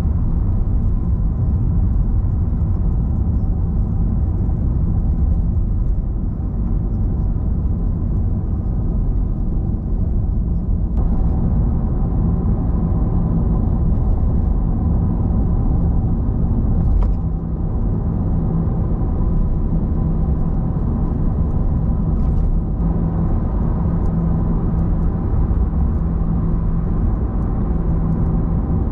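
A car driving: steady low road and engine rumble with a constant hum, shifting slightly in character twice.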